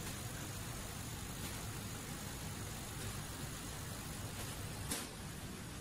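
Automatic har gow dumpling-forming machine running: a steady mechanical hum, with a few faint clicks and one sharper click near the end.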